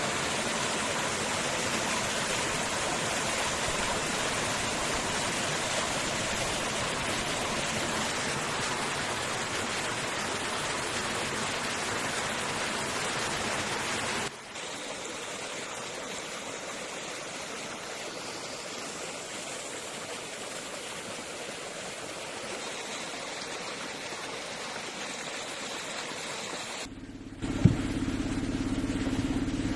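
Water of a small rocky stream splashing down over stones in a steady rush, dropping to a quieter flow about halfway through. Near the end there is a sharp knock, and a low steady engine hum starts.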